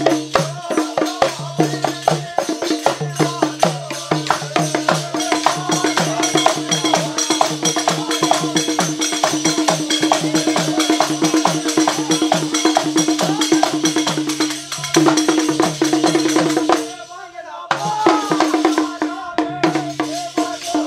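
Bundeli Rai folk music: hand-played barrel drums and fast, dense percussion strokes over a steady held tone, with men's voices singing. The music drops out briefly about three-quarters of the way through.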